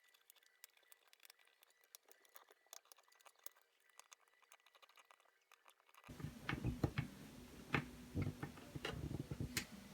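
Small plastic clicks and taps from handling the opened MIDI keyboard's parts: faint and sparse at first, then louder and closer about six seconds in, with a run of sharp clicks.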